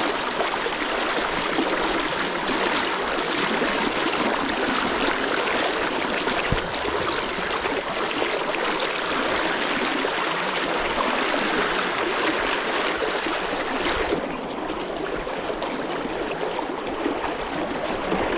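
Fast river current rushing past close to the microphone, a steady loud rush of water. The current is too fast for fishing this spot. About 14 seconds in, the rush becomes a little softer and less hissy.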